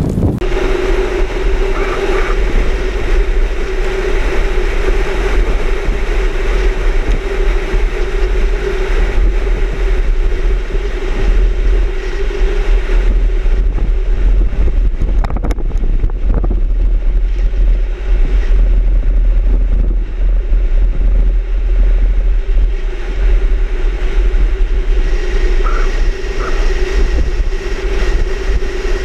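Strong wind buffeting the microphone in a steady heavy rumble, with a constant drone running underneath.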